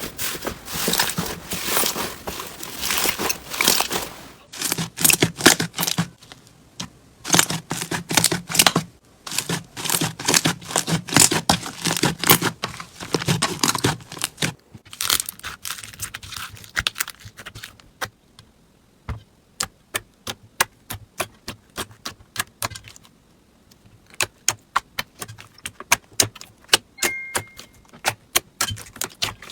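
Slime being squeezed and pressed by hand: dense crackling and sticky clicking through the first half, thinning out to sparse, sharp pops and clicks in the second half.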